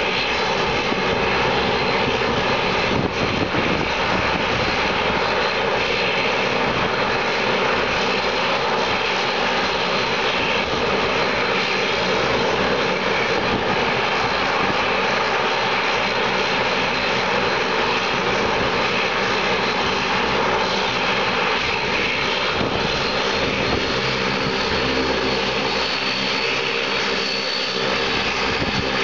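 Dash 8-Q400's Pratt & Whitney PW150A turboprop engines running steadily with the propellers turning, a thin high whine riding over the engine and propeller noise. The whine edges up in pitch in the last few seconds.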